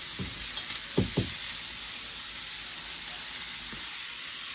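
Green beans and potatoes sizzling in a hot pot with a pat of butter, a steady hiss, with a few soft knocks near the start and about a second in.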